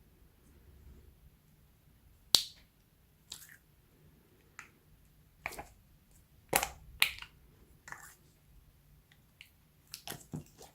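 Slime being kneaded and mixed by hand, giving sharp, irregular pops and clicks, the loudest about two seconds in and a quick cluster near the end.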